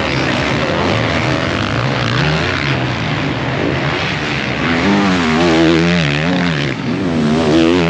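Several motocross motorcycle engines on the track, revving up and down as the bikes accelerate and back off. Their pitches rise and fall over one another.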